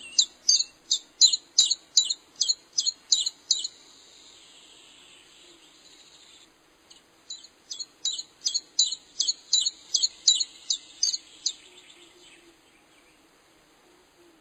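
A songbird singing a fast series of repeated high chirps, about four a second, in two runs of three to four seconds each with a pause between.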